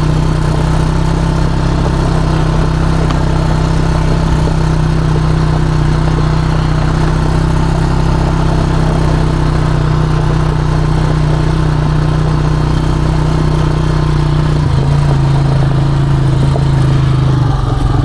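ATV engine running steadily while riding along a trail, with its pitch shifting about fifteen seconds in.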